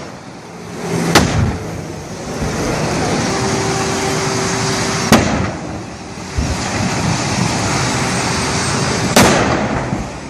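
Gas cylinders in a burning truck exploding: three sharp bangs about four seconds apart, over steady loud background noise.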